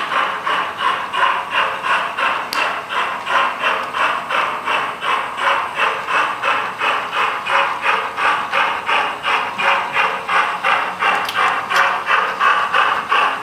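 Sound-equipped model steam locomotive chuffing steadily as it runs, about two and a half exhaust beats a second.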